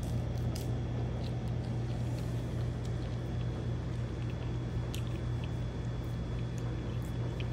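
Steady low background hum with a few faint clicks.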